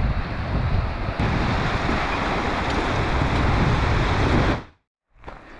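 Fast-flowing mountain river rushing loudly, with wind buffeting the microphone. It cuts off abruptly near the end, leaving only a faint outdoor background.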